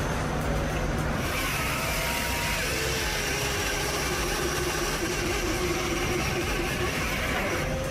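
Heavy machine's engine running steadily with dense mechanical noise; a brighter, hissing layer comes in about a second in.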